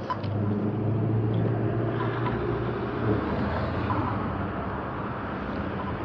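Road traffic passing close by: a motor vehicle's engine hum that swells in the first second and holds steady.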